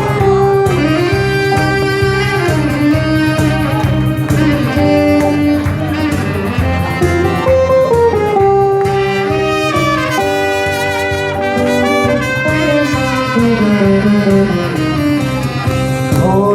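Instrumental break of a song's accompaniment: a lead melody of long held notes that slide between pitches, over a steady beat and bass.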